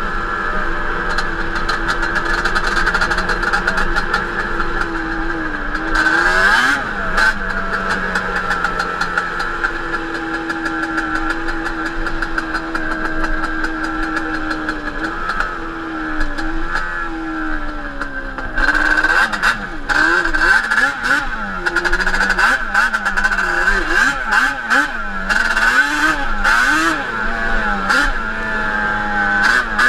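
Yamaha Banshee 350 twin-cylinder two-stroke engine on Toomey T5 expansion pipes, running under way on a ride. It holds a fairly even pitch at first, then from a little past halfway revs up and down again and again as the throttle is worked.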